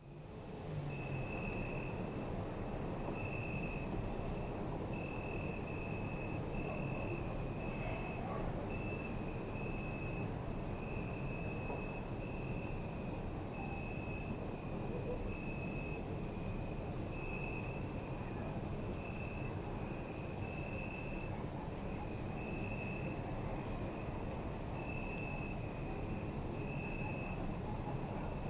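Crickets chirping: a continuous very high trill with a lower cricket chirping in short, evenly spaced bursts about once a second, over a steady low rumble. The sound fades in over the first second.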